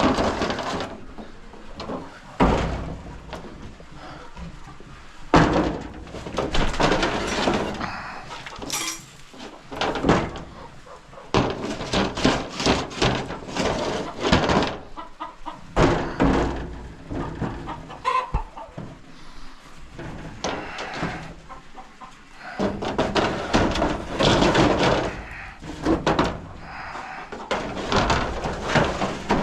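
Chickens clucking in the coop, mixed with repeated scraping and knocking from a metal scraper working droppings off the coop's shields.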